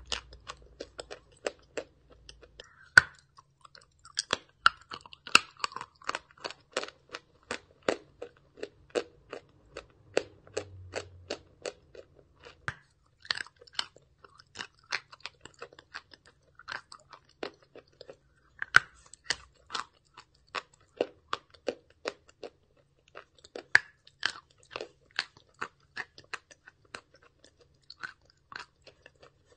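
Chewing and crunching a big piece of white chalk dipped in paste: a continuous run of sharp, crisp crunches, several a second, busiest in the first half.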